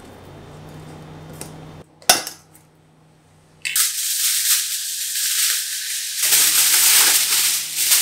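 A single sharp click about two seconds in, then aluminium foil crinkling continuously from about halfway on as it is scrunched around a metal billy can.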